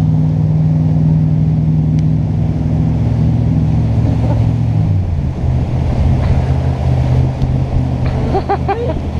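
Jet boat engine running steadily, settling to a lower pitch about halfway through.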